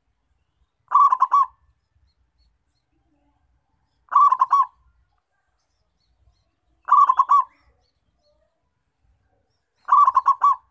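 Zebra dove (perkutut) cooing: four short calls, each a quick run of three or four notes lasting about half a second, repeated roughly every three seconds.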